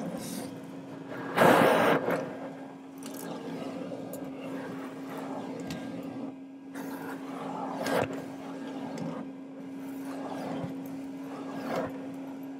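Vacuum cleaner running with a steady hum while its nozzle rustles and scrapes over the car's interior, with a loud burst about a second and a half in and a sharp knock later.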